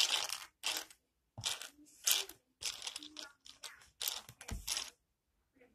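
Handling noise: a series of about seven short, crunchy rustles, uneven in spacing.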